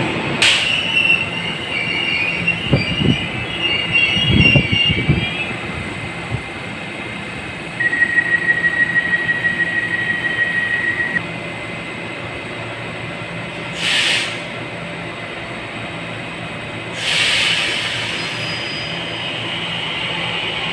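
Taiwan Railway train at a station: high-pitched wheel and brake squeal with a few low thumps as it rolls through the first six seconds. Then a rapid electronic beeping runs for about three seconds, followed by two short bursts of air hiss over the train's steady hum.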